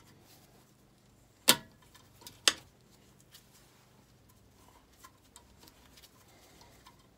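Two sharp metallic clanks about a second apart, the first with a short ring, as metal tools are handled against the engine while a valve spring compressor is set up; light clicks and ticks of tool handling follow.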